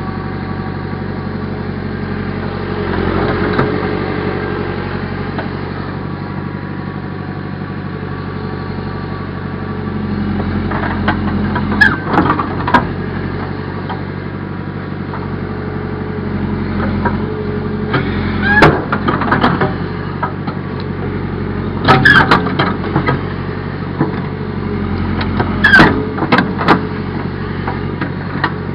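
Backhoe engine running steadily, with sharp knocks that come in clusters several times in the second half as the machine works.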